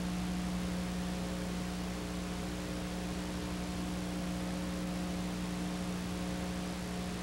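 Steady hiss with a constant low electrical hum and nothing else: the empty sound track of a silent home-movie film transfer.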